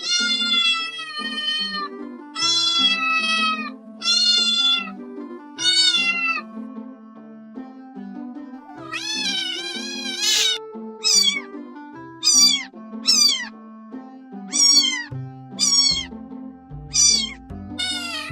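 A cat meowing repeatedly over soft background music: four drawn-out meows, a longer call about halfway through, then a run of short meows falling in pitch, roughly one a second.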